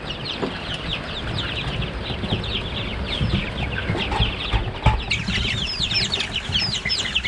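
A brooder full of young chicks peeping: many overlapping short, high chirps that fall in pitch, getting busier in the last couple of seconds. A sharp knock sounds about five seconds in.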